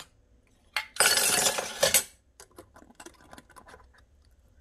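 Stainless-steel funnel clattering against a bottle and bowl for about a second as it is lifted and set down, followed by a few faint light clicks.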